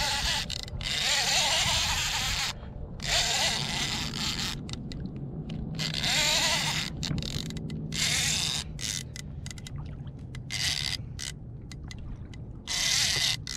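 Fishing reel drag screaming in repeated stretches of a second or two, with short gaps between them, as a hooked fish pulls line off the reel.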